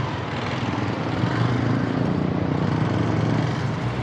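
Street traffic: motor vehicle engines running steadily close by.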